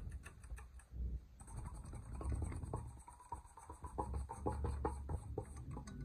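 Rapid light clicking and rattling at the Hampton Bay Cameron II Plus ceiling fan's light kit and glass globes, several clicks a second, thickening after about a second and a half, over a low rumble.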